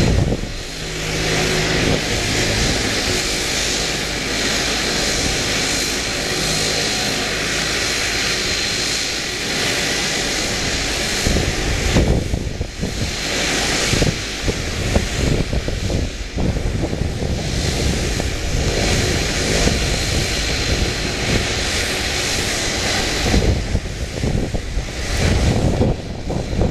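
Jet airliner engines at taxi power, a steady high whine over a broad rumble. From about halfway, wind buffets the microphone in gusts, and the whine fades out near the end.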